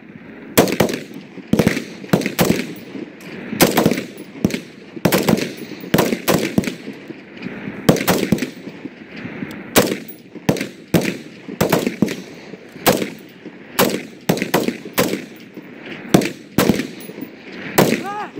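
Rifle fire from several shooters: single shots at an uneven pace, about two a second, often in quick pairs or overlapping.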